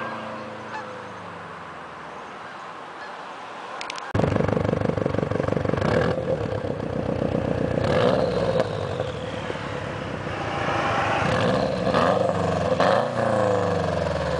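2004 Subaru WRX's turbocharged flat-four through an HKS turbo-back exhaust: a drive-by fading as the car moves away. About four seconds in, it cuts suddenly to the exhaust tip up close, the engine idling with several revs rising and falling, the last ones near the end.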